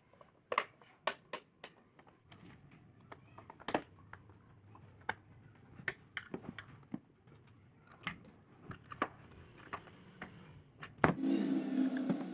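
Irregular light clicks and taps of plastic as the casing of a rechargeable LED emergency light is handled and turned over. About eleven seconds in there is a sharper click, then a steady low hum starts.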